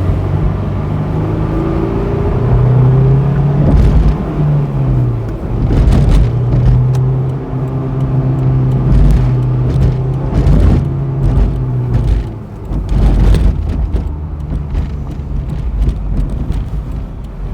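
2006 Honda S2000's 2.2 L F22C1 four-cylinder engine pulling the car along, heard from inside the cabin. The engine note holds a steady pitch, rises and falls a few times, and eases off briefly around twelve seconds in.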